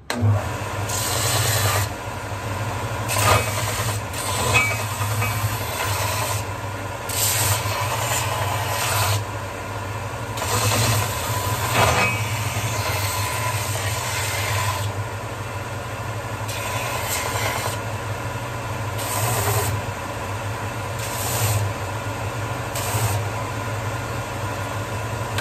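Electric drum sander starting up and running steadily, with repeated rasping bursts as the corners of pine 2x4 blocks are pressed against its sanding sleeve to round them.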